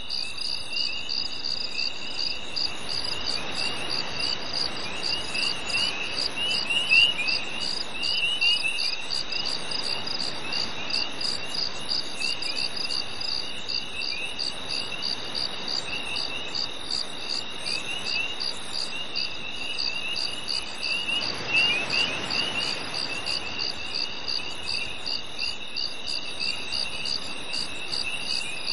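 Summer-night chorus of crickets and other insects: an even, rhythmic pulsing chirp over a continuous high trill, with a second, scratchier chirping that comes and goes. A soft rushing sound swells briefly twice, once a few seconds in and again about two-thirds of the way through.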